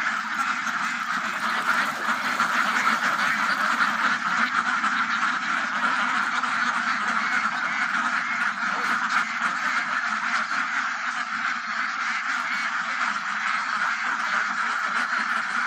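A flock of ducks quacking continuously, many calls overlapping into a steady din.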